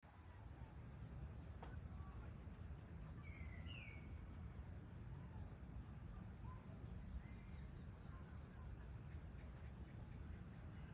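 Faint outdoor evening soundscape: a steady high-pitched insect trill, with a few short bird chirps about three to four seconds in and fainter calls later, over a low rumble.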